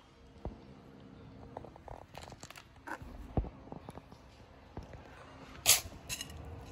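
Kittens scuffling and playing, giving scattered soft clicks, taps and scratchy noises. A dull thump comes about halfway, and a loud, short rasping noise comes about two-thirds through.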